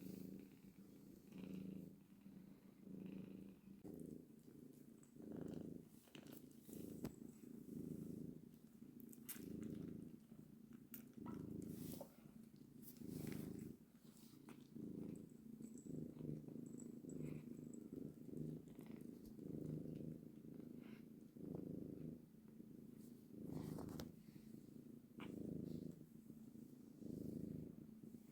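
A cat purring, a soft low rumble that swells and fades in an even rhythm about every one and a half seconds as it breathes in and out.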